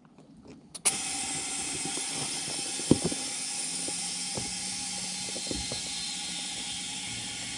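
An air compressor switches on with a click about a second in and runs steadily, hissing air into a tire being inflated after Slime sealant was added. There are a few light knocks during the run.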